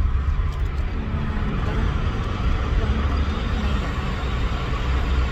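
Car driving, heard from inside the cabin: a steady low engine and road rumble with tyre noise.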